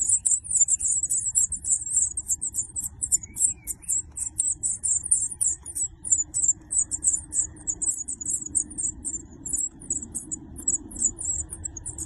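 A brood of songbird nestlings in a nest box begging for food: a continuous stream of very high, thin, rapid cheeping, many short notes a second.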